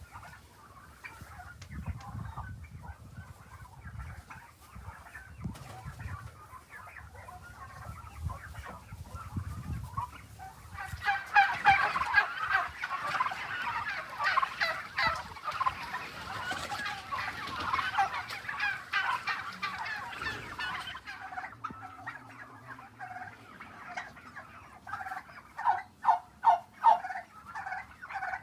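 A flock of young turkeys calling, rising to a loud stretch of rapid gobbling in the middle and a run of quick pulsed gobbles near the end. Low muffled thumps sound in the first part.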